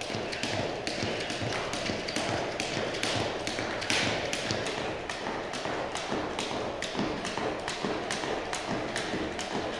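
A skipping rope ticking against a wooden parquet floor at a steady rhythm of about three strikes a second, with light landings of feet.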